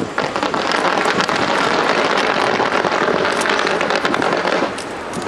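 Fireworks crackling and popping in a dense, rapid stream of small bangs, easing off briefly near the end.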